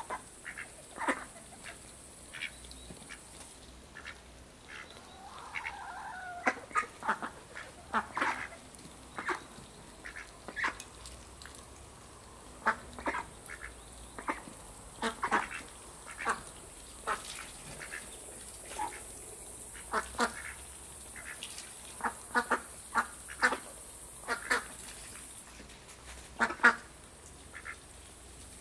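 Domestic ducks quacking in many short, irregular calls while feeding on scattered grain, loudest about two seconds before the end.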